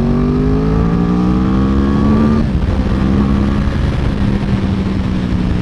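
2009 Yamaha R1 crossplane inline-four with Yoshimura exhausts accelerating, its note rising for about two and a half seconds, then dropping suddenly and holding steady. Wind rushes over the helmet microphone throughout.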